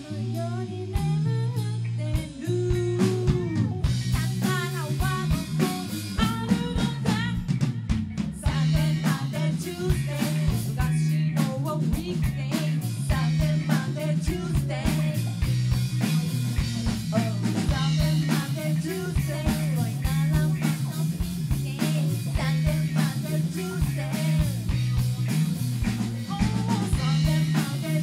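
Live rock band playing: a woman singing over electric guitar, electric bass and a drum kit.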